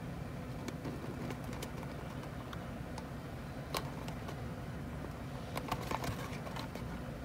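Fingers handling and turning a small cardboard toy box: scattered light taps and scrapes, a few bunched together about two-thirds of the way in, over a steady low hum.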